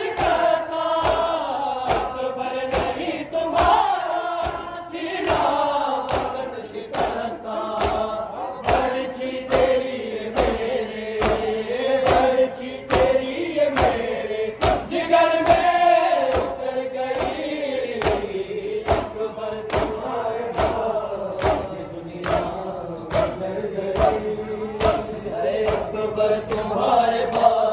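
A crowd of men chanting a noha (Shia lament) in unison, over a steady beat of sharp slaps about one and a half times a second from chest-beating (matam).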